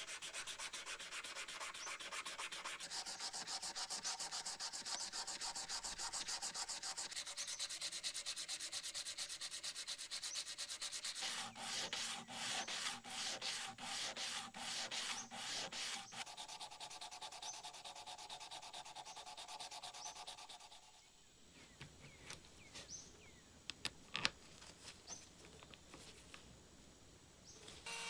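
Sandpaper rubbing back and forth over a rusty steel scissor blade, hand-sanding off the rust. In the middle stretch the strokes come quick and even, about three a second. About three-quarters of the way through the sanding stops, leaving quieter handling with a few light knocks.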